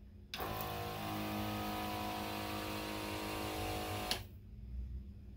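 Ryobi ONE+ 18V handheld electrostatic sprayer spraying through its 100-micron nozzle for about four seconds: a steady motor whine under the hiss of the spray, which stops sharply with a click when the trigger is released.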